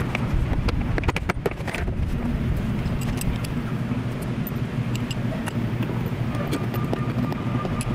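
Plastic door trim panel of a 2008 Chevrolet Tahoe being pressed back onto the door: a quick run of clicks as its retaining clips snap in, about a second in. Later come light scattered ticks of a screwdriver driving in a panel screw. Under it all is a steady low rumble.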